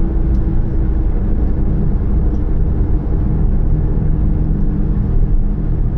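Steady low rumble of a car, engine and road noise as heard from inside it, with a faint even hum.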